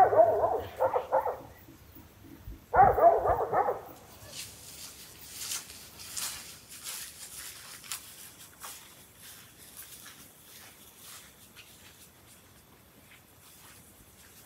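A dog barking in two short runs, the first right at the start and the second about three seconds in. After that there is only a faint high buzz of insects.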